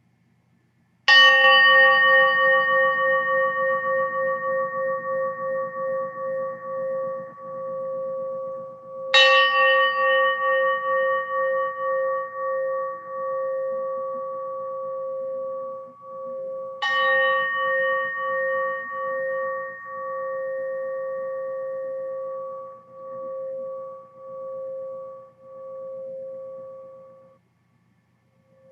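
A gong struck three times, about eight seconds apart, each strike ringing in a clear pulsing tone that slowly fades. The ringing is stopped short near the end.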